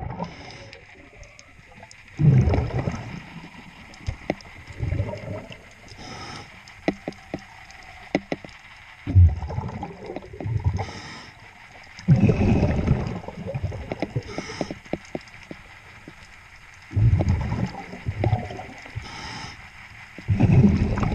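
Scuba diver breathing underwater through a regulator: five loud rushes of exhaled bubbles a few seconds apart, with fainter hissing inhalations between them. A run of sharp clicks and knocks from hands and tools on the propeller comes in the middle.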